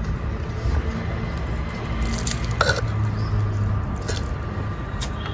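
A mouthful of water being swished and let dribble out, giving wet squelching and dripping sounds, with a few short sharp ones about two to three seconds in. The water is rinsing a mouth that is bleeding after a punch. A low steady rumble runs underneath.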